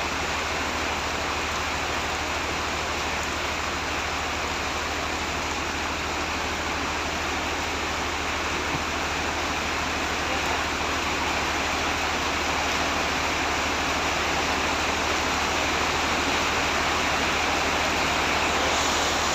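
Heavy tropical rain pouring down as a steady rushing hiss, growing slightly louder about halfway through.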